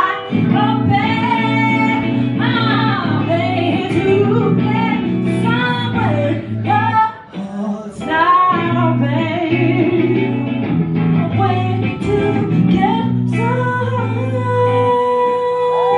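A woman singing live into a microphone with electric guitar accompaniment, heard from the audience of a concert hall.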